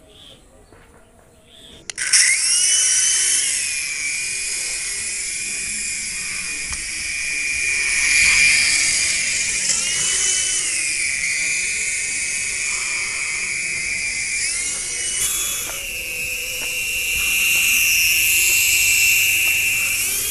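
Toy RC helicopter's small electric motors and rotor blades spinning up suddenly about two seconds in, then a loud, steady high-pitched whine with a hiss above it. The pitch rises and dips several times.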